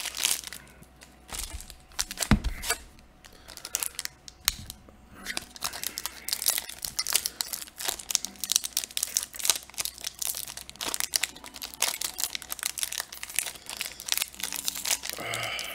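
A Commander Legends booster pack being opened: the plastic-foil wrapper crinkling and tearing, then the stack of cards inside rustling and flicking as it is handled. Scattered crackles at first, then a dense, continuous run from about five seconds in.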